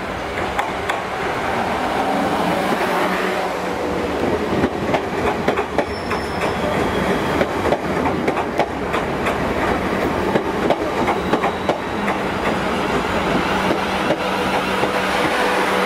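South Western Railway Desiro electric multiple unit running past along the platform, its wheels clattering over the rail joints in quick runs of clicks over a steady hum.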